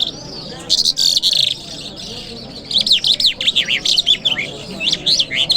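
Mashhadi 'jal' lark singing a varied song: a buzzy chattering phrase about a second in, then a fast run of quick falling whistled notes through the middle and more notes near the end.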